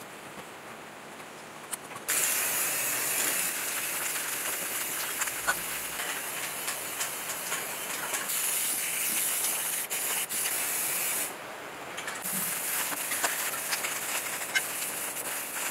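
Aerosol spray-paint can hissing as engine parts are spray-painted: one long spray starting about two seconds in and lasting some nine seconds, a pause of about a second, then another long spray.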